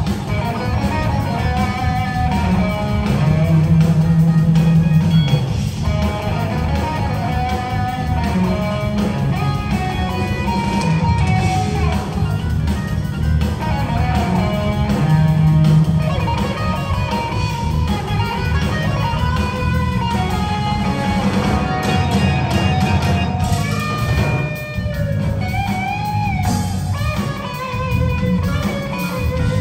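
Live jazz-fusion band playing: an electric guitar leads over keyboards, a second guitar and hand percussion on congas and timbales, with long low notes underneath.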